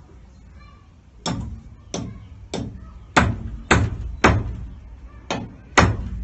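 Hammer blows on timber: eight sharp strikes, a little over half a second apart, with a pause of about a second before the last two.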